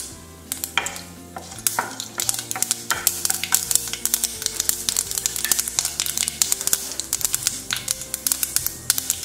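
Mustard seeds popping and crackling in hot oil in a pan, with a wooden spatula stirring through them. The rapid, irregular pops grow denser after about a second and a half. The spluttering is the sign that the oil is hot enough for the tempering.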